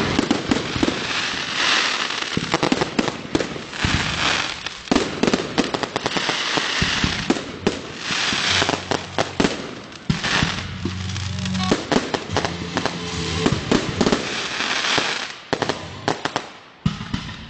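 Fireworks going off: a dense run of sharp bangs, with stretches of crackling hiss.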